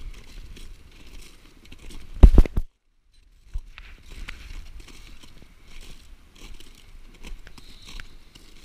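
Footsteps crunching and scraping on glacier ice, irregular and continuous. About two seconds in a loud low thump, like a knock or wind on the microphone, is followed by a moment where the sound cuts out before the crunching steps resume.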